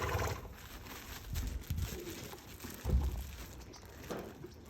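A horse eating strawberries: faint chewing clicks, with two short low rumbles about a second and a half and three seconds in.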